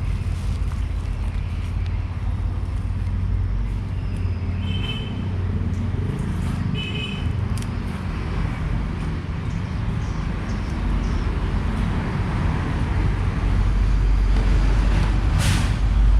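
Steady low rumble of road traffic, growing louder near the end.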